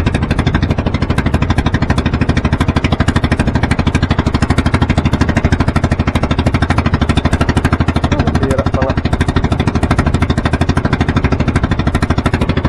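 Outrigger fishing boat's (bangka's) engine running steadily at trolling speed, a rapid, even chugging.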